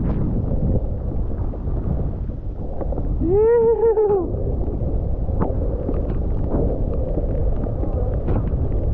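Wind rushing over the microphone while skiing through deep powder, with one drawn-out whoop from the skier, rising then falling, about three seconds in.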